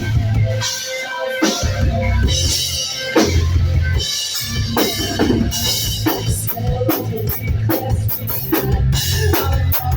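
Rock band playing live, heavy drum kit and kick drum under guitars and bass, with rapid drum strikes near the end, recorded on a phone's microphone.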